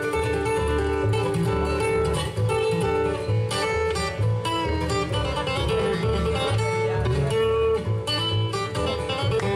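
Two steel-string acoustic guitars picking a quick instrumental bluegrass break over an upright bass line.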